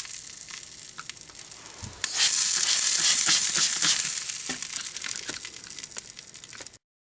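Burnt-out toner cartridge sizzling and crackling with many small pops, louder from about two seconds in and then dying down; it cuts off abruptly near the end.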